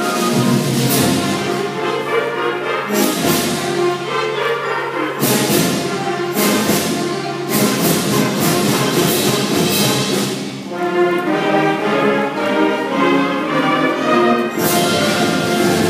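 School band playing a piece under a conductor: held chords with drums, and several sharp percussion strikes in the first half and again near the end.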